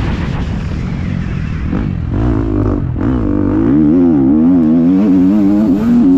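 Motocross bike engine heard from on board at racing speed, revving hard with the throttle. The revs climb about two seconds in, then rise and fall rapidly and repeatedly through the middle before settling.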